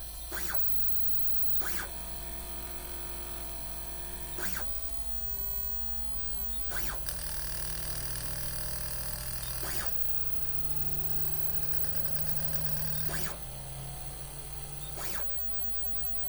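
3D printer fitted with a drill, working through a drilling run: the stepper motors hum at a steady pitch that jumps to a new note every few seconds as the moves change. A sharp click falls between moves, over a constant low hum.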